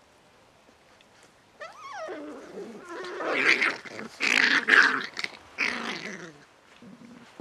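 Seven-week-old beagle puppies growling as they play-fight. About a second and a half in, a short wavering high whine, then a run of loud growls through the middle that dies down near the end.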